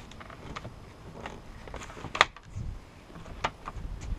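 Wooden coaming sections of a Nautiraid Grand Narak 550 folding kayak being fitted together by hand, giving a few light clicks and knocks. The sharpest comes about two seconds in and another about three and a half seconds in.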